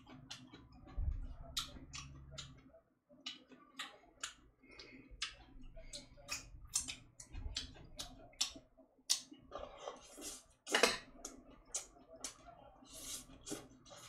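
Eating sounds: chewing and wet mouth smacks with light clicks, coming irregularly a few times a second, with a louder, longer smack about eleven seconds in.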